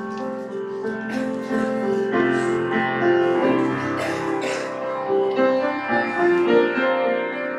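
Solo grand piano playing, with notes and chords ringing on over one another.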